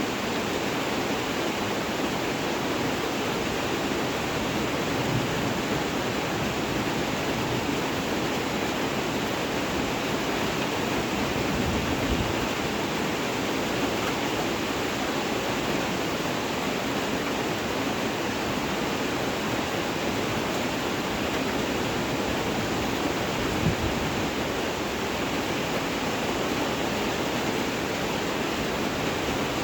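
Steady rain falling, an even hiss with no let-up, with a couple of soft low thumps along the way.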